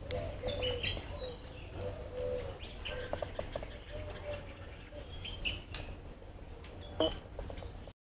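Garden birds chirping and calling, many short notes overlapping, over a low steady background. The sound cuts out abruptly near the end.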